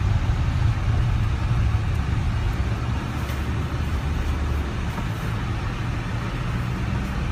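Car driving along an unpaved dirt road, heard from inside the cabin: a steady low rumble of engine and tyres that eases slightly a few seconds in.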